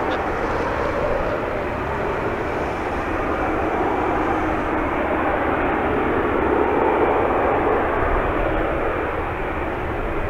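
Boeing 777-9's twin GE9X turbofan engines running at low taxi thrust as the airliner rolls slowly: a steady jet hiss and rumble that swells slightly a little past the middle.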